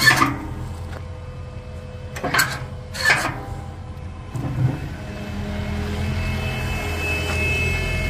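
Kubota KX080 excavator's diesel engine running steadily while the hydraulic quick coupler and bucket give four sharp metal clanks in the first five seconds. The engine grows louder after about five seconds, and a steady high tone comes in near the end.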